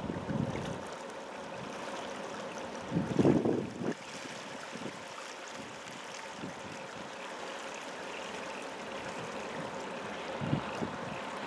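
Floodwater of the swollen Wollondilly River flowing in a steady rush, with wind buffeting the microphone in low gusts, loudest about three seconds in.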